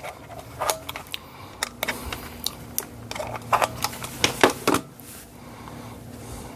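Irregular clicks and clacks of test gear being handled while a 1 kΩ resistance measurement is set up, about a dozen over roughly four seconds, then stopping.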